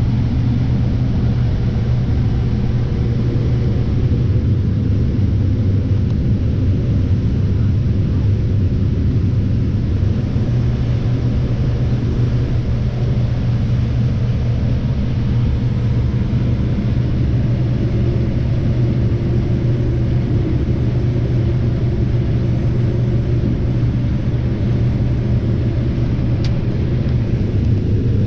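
Heavy farm diesel engine running steadily at constant speed, a low even drone. A single brief click sounds near the end.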